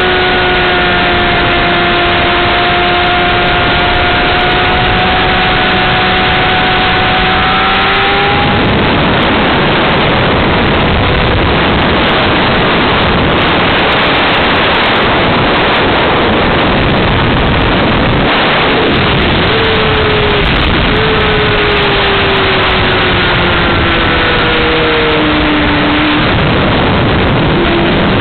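Honda CBR600RR inline-four engine at track speed, nearly buried under heavy wind rush on the onboard microphone. Its pitch climbs about eight seconds in and is swallowed by the wind, then comes through again from about two-thirds of the way through, falling as the bike slows and rising once more near the end.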